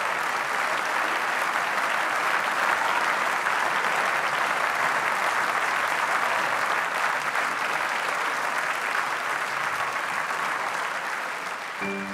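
A large theatre audience applauding steadily, a dense continuous clapping. Near the end a few pitched music notes come in.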